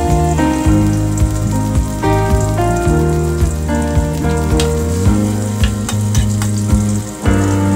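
Potato cubes deep-frying in oil in a wok, with a steady sizzle and a wooden spatula stirring them near the end. Background music with a steady beat plays over it.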